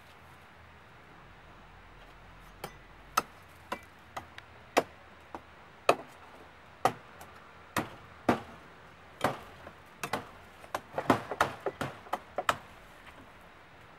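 Sharp single chopping knocks at irregular intervals, starting a few seconds in and coming faster and closer together near the end.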